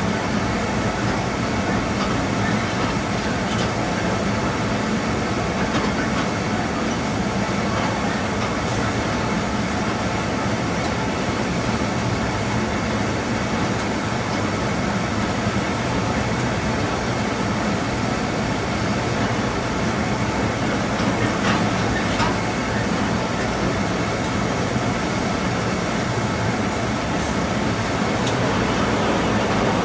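Moving train's wheels running on the rails at speed, a steady running noise with a few faint clicks scattered through, growing slightly louder near the end.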